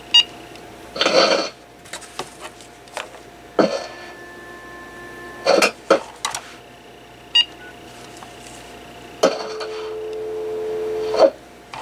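AT&T 5655 cordless phone handset being handled and keyed: two short high key beeps, plastic clicks and knocks, a steady two-tone signal for about two seconds, and near the end a low steady dial tone for about two seconds that cuts off with a click.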